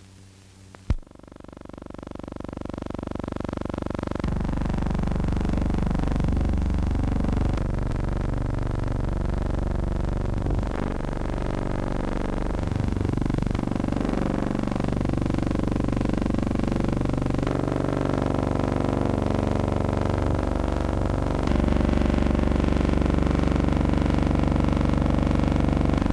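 Military vehicle engine noise: a sharp click about a second in, then engine sound swelling up and running loud and steady from about four seconds in, its pitch shifting in steps a few times.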